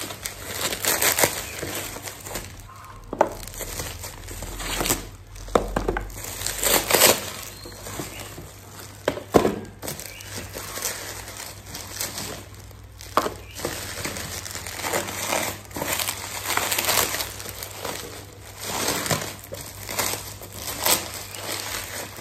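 Bubble wrap and plastic packaging crinkling and rustling in irregular bursts as a parcel is pulled open and unwrapped by hand.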